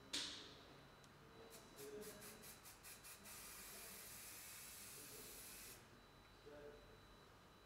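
Aerosol hairspray can spraying onto hair: a short hiss right at the start, then a quick run of about eight short puffs, then a steady spray of about two and a half seconds that cuts off.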